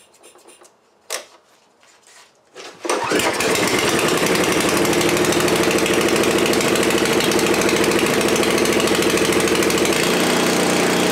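Murray snowblower's Briggs & Stratton 205 cc single-cylinder engine being test-started after a fresh oil and spark plug change. One sharp click comes about a second in. The engine catches a little under three seconds in and runs steadily, and its note shifts slightly near the end.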